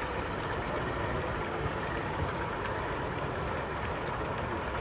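Steady background noise of a busy exhibition hall, with a model train of coal hopper wagons running along the layout.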